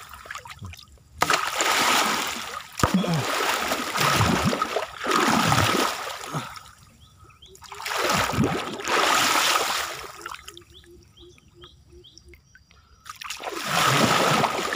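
Water sloshing and splashing in about five surges, each a second or two long with short lulls between, as a person wades through a muddy flooded stream to drive fish toward a gill net.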